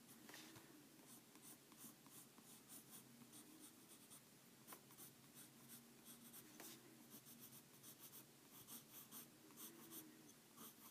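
Faint scratching of a colored pencil shading over a marker base coat on paper, in quick repeated strokes.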